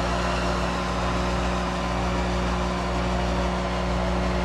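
Monarch 10EE toolroom lathe running steadily with its spindle turned down to about 600 rpm on the thyratron vacuum-tube variable-speed drive: an even machine hum with several steady tones.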